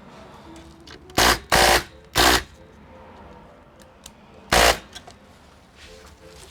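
Four short bursts of an electric screwdriver running, undoing screws; the last comes after a pause of about two seconds.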